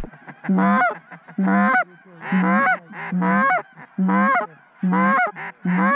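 Canada goose call blown by a hunter: a steady run of seven loud honks, a little more than one a second, each breaking from a low note up to a high one.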